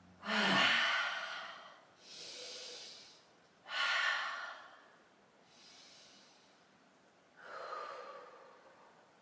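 A woman breathing slowly and deeply: three louder breaths about every three and a half seconds, with softer breaths between them.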